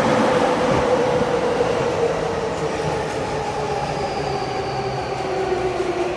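Electric commuter train, a light-blue-striped stainless E233 series on the Keihin-Tohoku line, running past the platform close by: a steady rush of wheel and running noise with a motor whine that slowly falls in pitch.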